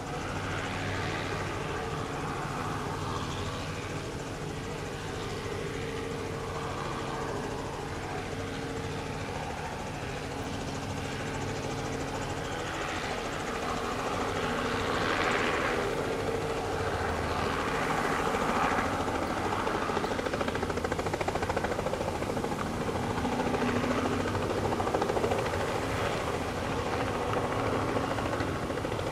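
Robinson R44 II helicopter running with its rotor turning: a steady drone from its Lycoming six-cylinder piston engine and rotor. It grows louder from about halfway through, and near the end it lifts off into a low hover.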